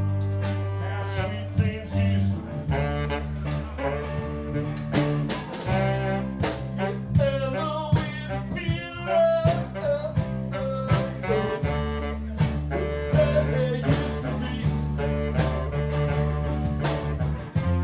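A band playing a blues-style song: a steady drum beat and bass line under a gliding melodic lead.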